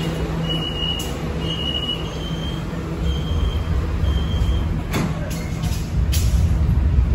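Metro train at the platform: a door-closing warning beeps about once a second, five beeps in all, then the doors shut with a knock about five seconds in and another a second later. A low rumble from the train runs throughout and grows louder near the end.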